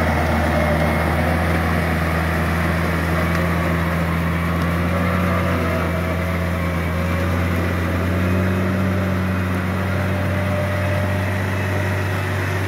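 Yanmar EF494T tractor's diesel engine running steadily under load while it pulls a rotary tiller through wet rice-paddy soil.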